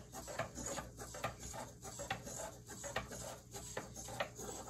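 Small XGO quadruped robot dog walking on a wooden desk: a quick, steady run of light clicks and taps from its feet and servos, about four a second.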